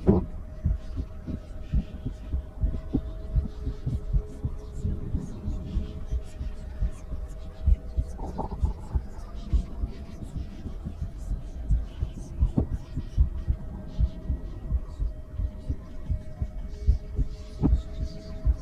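A woman's heartbeat heard through a stethoscope: repeated low thumps, with a steady faint hum underneath.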